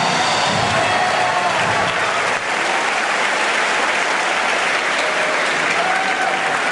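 A large audience applauding steadily, with a few whoops of cheering, as the skit ends and the stage goes dark.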